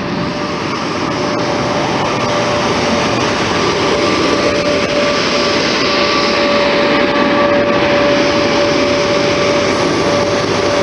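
Sr1 electric locomotive passing close along the platform, its running noise growing louder, with a steady whine throughout.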